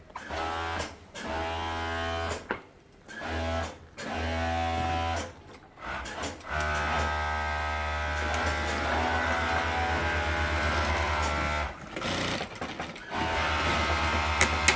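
Industrial overlock sewing machine stitching around a cape's edge, its motor humming with a steady whine. It runs in short bursts with brief stops, then in one long run of about five seconds in the middle before stopping and starting again.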